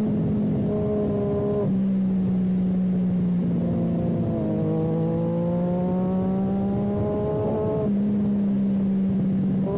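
Motorcycle engine running at speed on a race track. Its pitch holds steady, steps abruptly a few times as gears change, and climbs steadily for about three seconds in the middle under acceleration.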